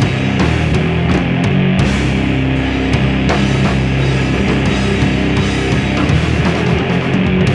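Punk rock band playing loud on guitars and a drum kit: held low chords with steady drum and cymbal hits over them.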